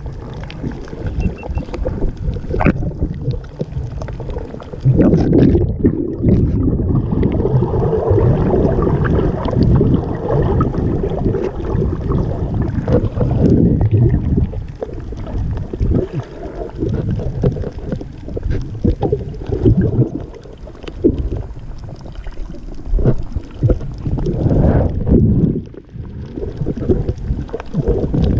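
Muffled underwater noise heard through a GoPro's waterproof housing: water rushing and gurgling around the camera as it moves, with small knocks and clicks, swelling and fading unevenly.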